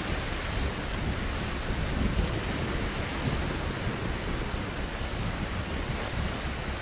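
Steady outdoor rush of wind and sea, with irregular low rumbling of wind buffeting the microphone.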